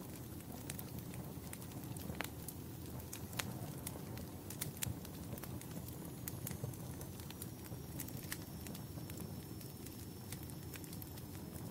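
Wood fire burning in a fireplace, crackling with irregular sharp pops over a steady low rumble. A faint thin high whistle comes in about halfway and slowly drops in pitch.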